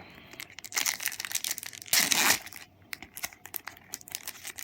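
Match Attax trading-card packet crinkling as its wrapper is torn open, with a loud half-second rip about two seconds in.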